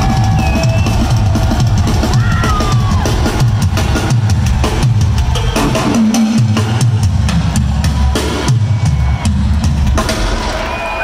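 Live rock band in an arena, the drum kit to the fore: bass drum, snare rolls and cymbal crashes pounding through the song's closing build. The music stops near the end.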